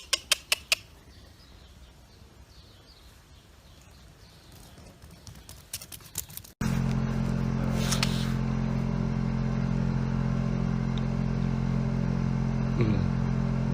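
A few sharp clicks over quiet, then, about six and a half seconds in, a steady low mechanical hum starts abruptly and holds.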